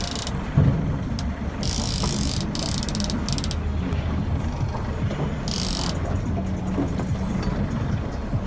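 Fishing reel ratcheting in several short spurts of fast clicking while a hooked shark is played on rod and reel, over the steady low hum of the boat's engine.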